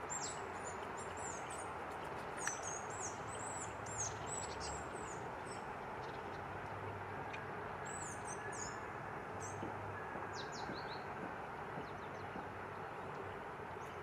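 Small birds giving high, thin calls that slide downward, many in the first few seconds and again about eight to eleven seconds in, over a steady background hiss. Two sharp clicks stand out about two and a half and four seconds in.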